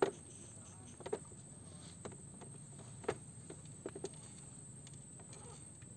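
Quiet mangrove-river ambience: a steady high-pitched insect drone, with a few short sharp clicks or taps about once a second.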